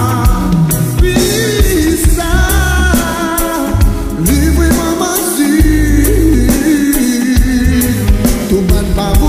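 A song with a lead vocal over heavy bass and a steady drum beat, its sound thickened with added reverb.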